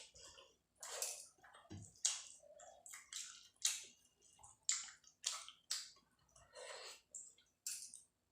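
Close-miked eating sounds of rice and curry: short wet mouth and food noises coming irregularly, about two a second.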